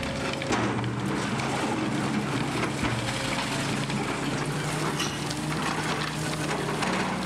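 High-reach demolition excavator's diesel engine running steadily while its boom tears at a building, with concrete breaking and debris falling.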